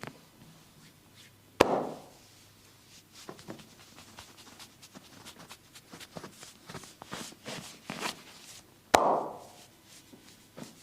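A barber's hands massaging a man's bare back: two loud sharp smacks of palm on skin about seven seconds apart, with light rubbing and many small skin clicks and pops between them.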